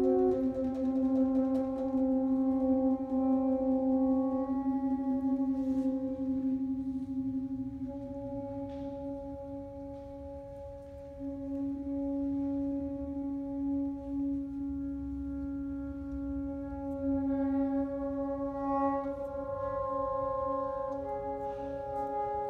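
Saxophone quartet of soprano, alto, tenor and baritone saxophones playing live in slow, sustained chords, the held notes shifting only every few seconds. The chords fade softer toward the middle, then swell again about halfway through.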